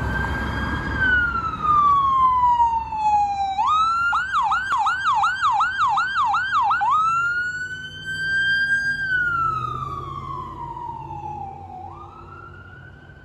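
Electronic siren of a fire department battalion chief's pickup, sounding a slow wail, switching to a fast yelp about four seconds in and back to the wail about three seconds later. It fades as the truck drives away.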